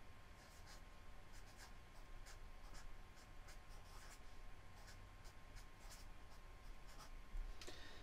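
Marker pen writing on spiral notebook paper: faint, short, irregular strokes as letters are drawn.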